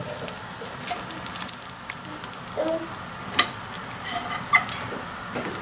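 Polenta rounds sizzling on a hot ridged grill pan, a steady hiss, with a few sharp clicks, the loudest about three and a half seconds in.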